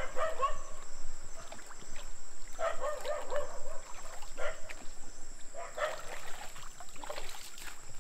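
Shallow river water sloshing and trickling as people wade between rocks, over a steady high-pitched insect drone. Short voice-like sounds come in brief clusters every second or two and are the loudest thing.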